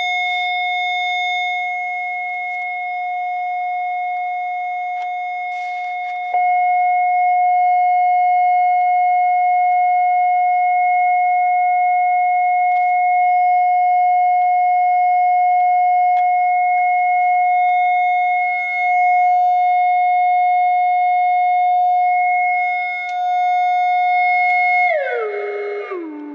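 A steady, loud electronic tone with overtones, played out through a BOSS ME-10 guitar multi-effects unit during its post-repair operation check. It jumps louder about six seconds in, and near the end the pitch falls in a few steps.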